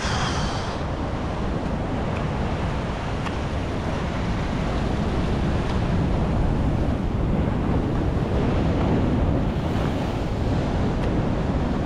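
Sea surf washing against a rocky shore, with wind buffeting the microphone.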